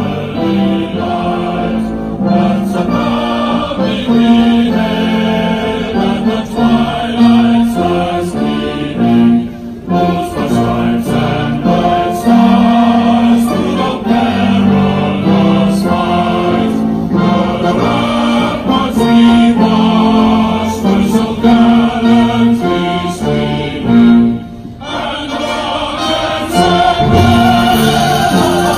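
Military brass band, sousaphones among the brass, playing with a choir singing, live at an outdoor ceremony. The music breaks off briefly near the end, then picks up again.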